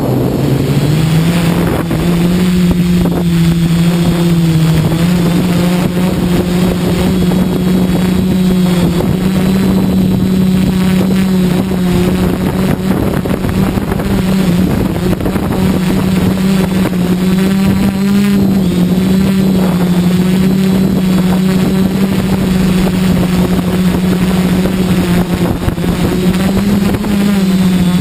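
Quadcopter's electric motors and propellers buzzing steadily, heard from the GoPro mounted on the craft, the pitch rising about a second in and then shifting slightly up and down as the throttle changes. Wind noise on the microphone underneath.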